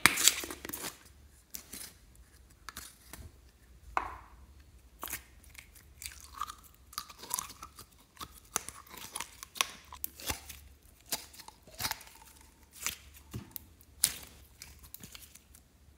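Thick white cream squelching out of a squeezed plastic bottle, with a loud sputtering burst right at the start. It goes on as many short, sticky clicks and pops while the cream is squeezed out and pulled apart by hand.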